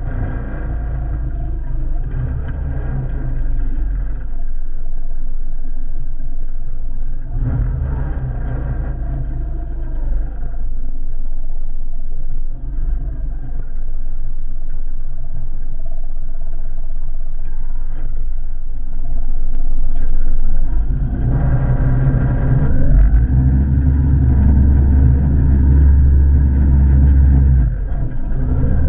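Outboard motor of a small aluminium boat running steadily under load while it tows a floatplane, a continuous low drone that grows louder from about 21 seconds in and eases near the end.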